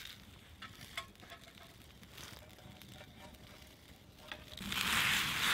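Small fire ticks and crackles, then about four and a half seconds in a loud, steady sizzling hiss starts: water heating in a titanium fry pan set on the campfire flames.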